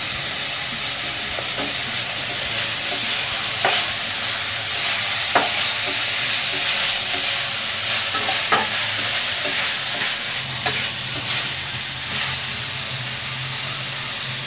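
Diced pork sizzling as it fries in oil in a steel wok, stirred with a metal spatula that scrapes and clinks against the pan several times.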